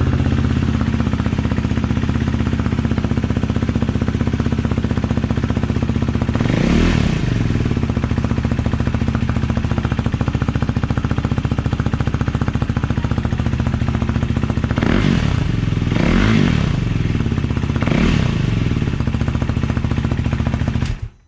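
KTM Duke 390's single-cylinder engine idling steadily through an aftermarket Black Widow exhaust with the baffles in, pretty loud. It is revved briefly four times, once about a third of the way in and three times in quick succession later on, then switched off just before the end.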